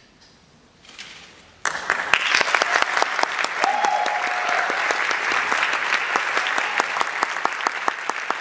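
A hush after the final cutoff, then the audience breaks into loud applause about one and a half seconds in, many hands clapping densely.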